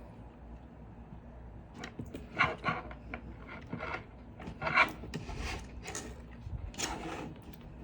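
Hands fitting a small part back onto a cooling fan and miner board: irregular rubbing and scraping with a few sharp clicks, the loudest a little under five seconds in.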